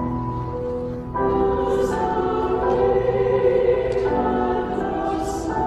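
Mixed church choir singing a sacred anthem in harmony, holding sustained chords that change every second or so. A brief sung 's' hiss from the voices comes about two seconds in and again near the end.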